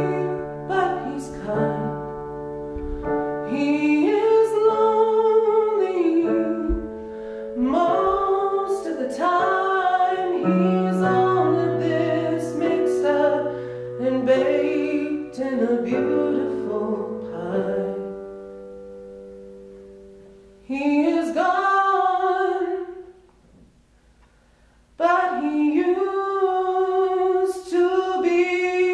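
A male tenor sings a slow ballad to piano accompaniment. The piano dies away about two-thirds of the way through; after a brief silence he carries on singing unaccompanied.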